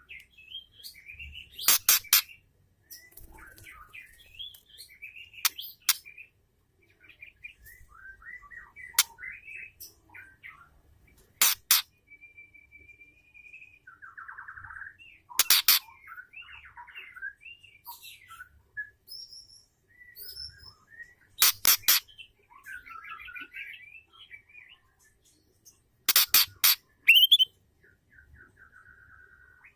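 Female white-rumped shama calling: soft whistled and warbled notes and short buzzy trills, broken about every five seconds by loud groups of two to four sharp clicking notes.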